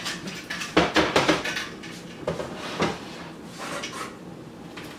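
Pots and cooking utensils clattering at the stove: a run of sharp knocks and scrapes in the first three seconds, then quieter.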